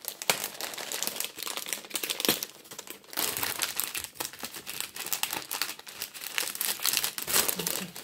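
Clear plastic packaging bag crinkling and crackling in quick, irregular runs as hands pull and work at it to get it open.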